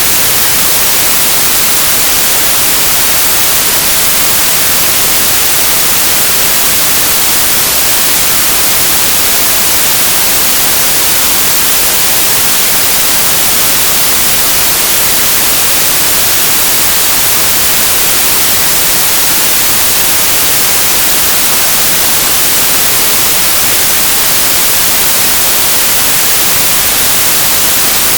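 Synthesised stereo white noise: a steady, loud, even hiss with a flat spectrum, bright and unchanging.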